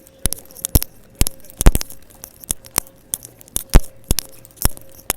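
Loud, irregular popping and crackling from faulty earbuds' microphone, a sharp pop about twice a second. A faint steady tone runs underneath.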